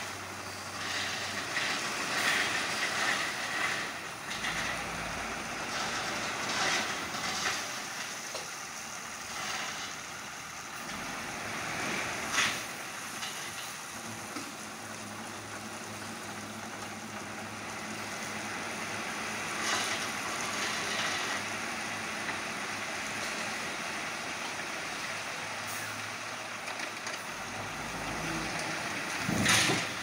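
Tipper truck's engine running while its hydraulic hoist tips the dump bed to unload gravel, a steady mechanical rumble and hiss. A few sharp knocks come through it, about twelve seconds in, around twenty seconds and near the end.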